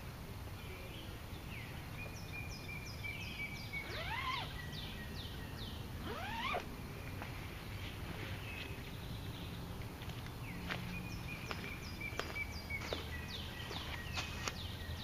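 Several wild songbirds singing in woodland: series of short, high, falling notes repeated quickly, a couple of long held whistles, and two rising swept calls, over a steady low background hiss.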